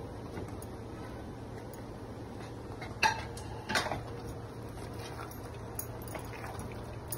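A metal utensil clinks sharply against the cooking pan twice, about three and four seconds in, as paneer is added to the masala, over a steady low hum.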